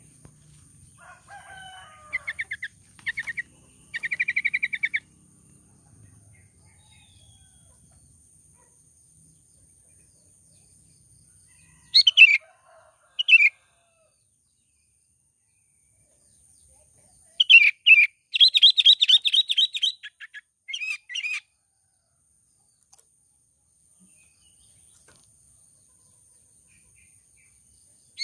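Sooty-headed bulbul calling in bouts of quick, bubbly chirps: a burst of rapid notes about two to five seconds in, two short calls around twelve to thirteen seconds, and a longer run of rapid notes from about seventeen to twenty-one seconds, with quiet gaps between.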